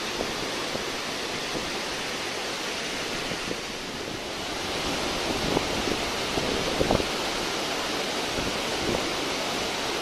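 Tall waterfall pouring down a rock face: a steady rush of falling water, with a few brief louder moments a little past the middle.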